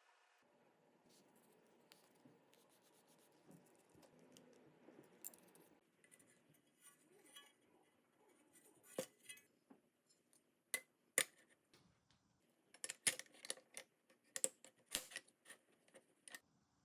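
Small metal parts and tools clicking and clinking as they are handled, a scatter of sharp taps that grows denser in the second half, over a faint low hum.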